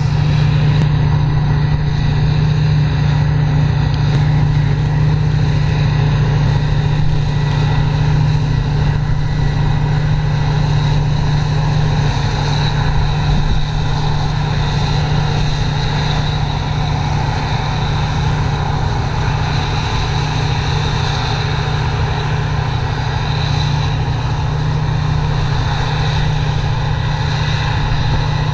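Heavy diesel farm machinery running steadily at constant speed, with a strong even low hum that does not change in pitch or loudness.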